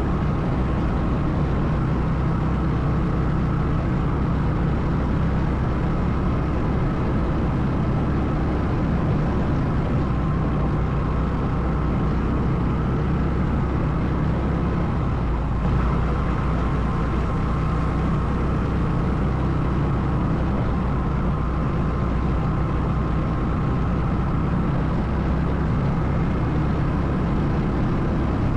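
ATV engine running steadily under way, a constant low rumble with no change in speed.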